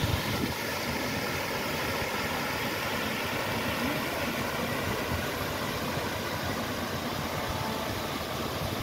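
Plaza fountain's jets spraying and splashing into its basin: a steady rush of falling water.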